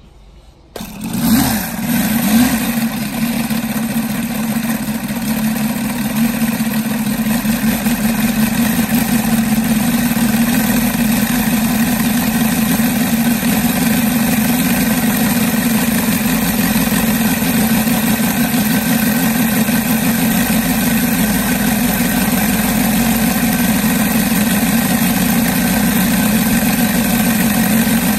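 UMS 7-50 seven-cylinder 50cc four-stroke radial petrol engine swinging a 22x8 wooden propeller catches about a second in, then runs steadily, building a little over the first several seconds. It is a brand-new engine on its first run.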